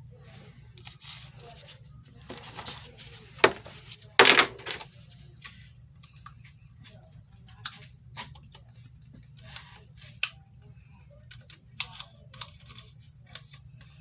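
Irregular rustling, scraping and small clicks of fiberglass repair materials being handled, with the loudest scrape or tear about four seconds in, over a low steady hum.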